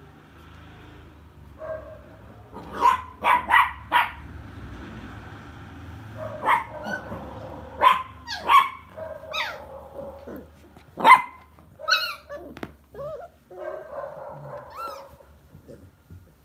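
Lhasa Apso dogs barking while playing: about a dozen short, sharp barks and yaps, several in quick runs, with longer drawn-out vocal sounds between them.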